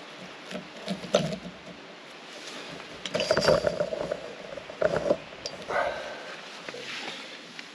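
Irregular rubbing, scuffing and knocking sounds as a nylon rope is knotted and pulled tight around an awning pole, over the steady rush of a nearby creek.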